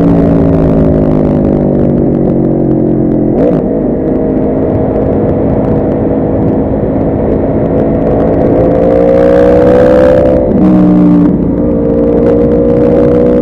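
A Yamaha R1's inline-four engine heard from on board, winding down for the first few seconds with its pitch falling. A shift about three and a half seconds in sharply changes the note, then the engine pulls again with a rising pitch. Another gear change comes near eleven seconds, all under a steady rushing noise.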